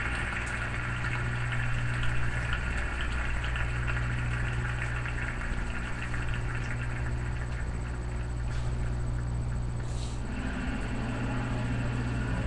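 Arena crowd noise on a television broadcast, heard through the TV's speaker and a webcam microphone, over a steady low electrical hum; the sound of the crowd shifts about ten seconds in.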